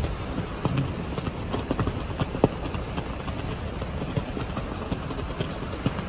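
Strong wind rumbling and buffeting steadily, with irregular sharp slaps of a flag against its metal flagpole; one slap about two and a half seconds in is the loudest.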